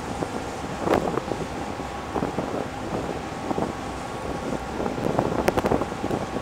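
Wind buffeting the microphone, with stronger gusts about a second in and near the end, over a steady drone from a Sado Kisen car ferry's engines.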